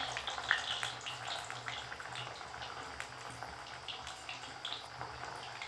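Hot oil in a steel kadhai sizzling and crackling around semolina-and-potato balls just dropped in to deep-fry, with frequent small pops. The sizzle eases slightly toward the end.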